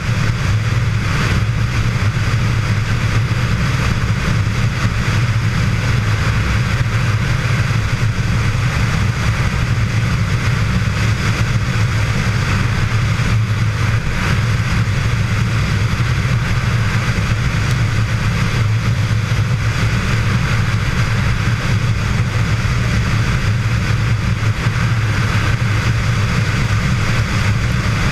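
Motorcycle engine running at a steady highway cruise, a constant low drone with wind and road noise rushing over a microphone mounted on the bike.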